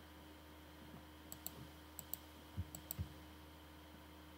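Computer mouse clicks: three quick double clicks about a second apart, faint over a steady low hum, with two soft low thumps near the middle.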